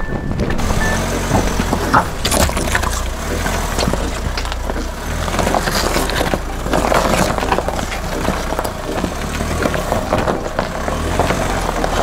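SsangYong Rexton Sports Khan pickup crawling up a rutted, rocky forest trail in low-range four-wheel drive: its 2.2-litre diesel engine makes a steady low drone under continual knocks, crunches and clatters from the rough ground.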